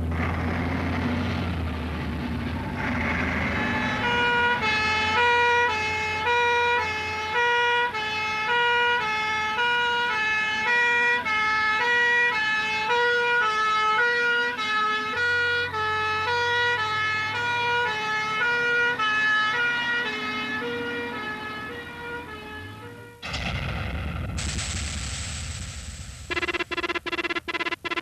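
Fire engine's two-tone siren, switching steadily back and forth between two notes, over the low rumble of the truck's engine. The siren cuts off about 23 seconds in, and electronic music starts near the end.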